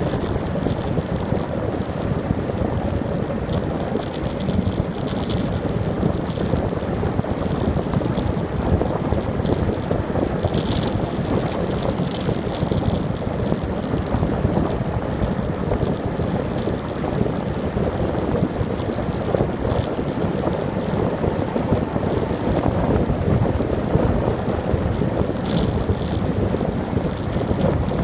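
Bicycle riding along a paved road: a steady rush of wind on the microphone mixed with tyre and road noise, with a few sharp clicks or rattles from the bike, one about eleven seconds in and one near the end.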